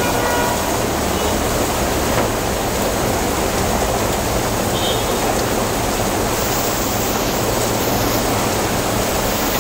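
Rain falling steadily, an unbroken even hiss.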